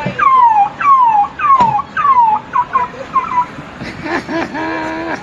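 A man's voice imitating an emergency-vehicle siren: a run of quick falling whoops, then shorter chirps, then a held note near the end.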